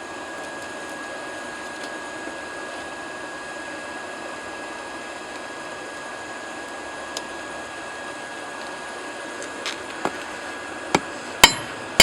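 Forge running with a steady rushing sound and a faint constant whine. Near the end come a few sharp metal strikes, hammer blows on the hot workpiece.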